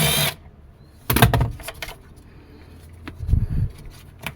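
Clicks, knocks and light rattling of hand work as the rear door switch is taken out of a Toyota Land Cruiser's back door. There is a sharper knock about a second in, low thumps past the middle and a click near the end. A noisy whir cuts off just after the start.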